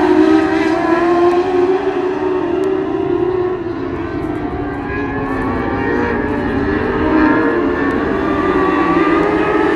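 Several dwarf race cars' motorcycle engines running at high revs around the oval, their pitches rising and falling as the cars pass. The sound eases a little midway and builds again near the end.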